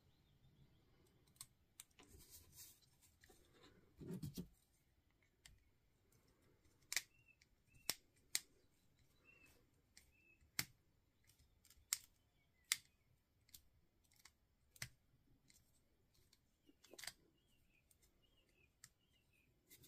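Small screwdriver and wire ends working the screw terminal blocks of a circuit board: faint, irregular clicks and ticks, about ten in all, with a short rustle about four seconds in.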